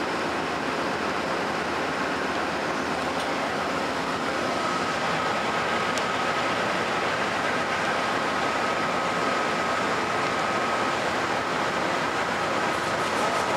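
A passenger train rolling past: a steady rumble and rush of cars on the rails. A thin, steady high whine joins in about four seconds in.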